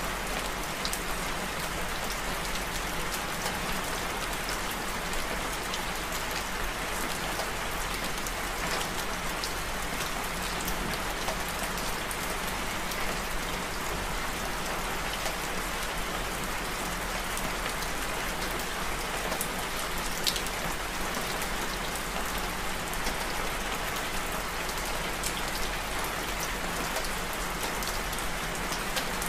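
Steady rain falling: an even hiss with scattered sharp ticks of single drops, one of them louder about twenty seconds in.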